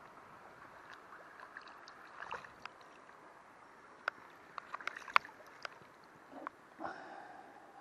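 Hands splashing and swishing in shallow river water as a brown trout is released, with a cluster of sharp splashes about four to six seconds in, over the steady run of the stream.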